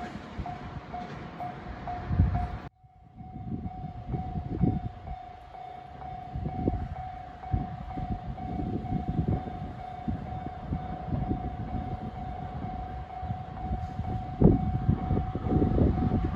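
Level-crossing warning bell ringing in quick repeated dings over the heavy rumble of a passing train. About three seconds in the sound cuts off abruptly, and the bell carries on as a steady ring over a lighter low rumble.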